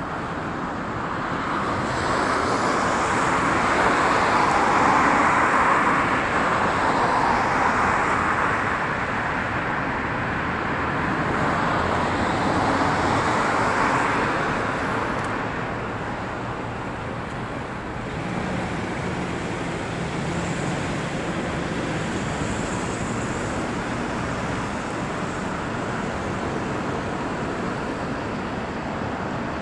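Road traffic: cars passing on a wide street, their tyre and engine noise swelling twice in the first half as vehicles go by, then a steadier hum with a low engine tone for a few seconds around the middle.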